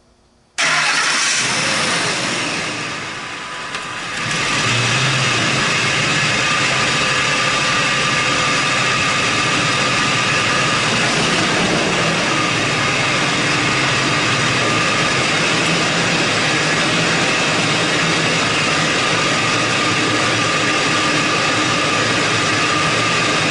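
2004 Ford F-150 engine starting with a sudden burst about half a second in, easing off, then running steadily at idle.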